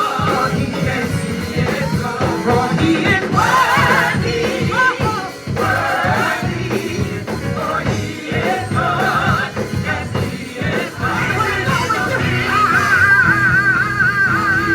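Live gospel worship music: singing voices with vibrato over instrumental accompaniment, with a long held sung line near the end.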